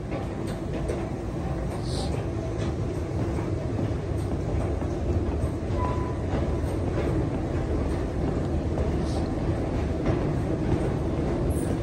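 Steady low rumble of a Stockholm metro train in the tunnels below, slowly growing a little louder, with a short single beep about six seconds in.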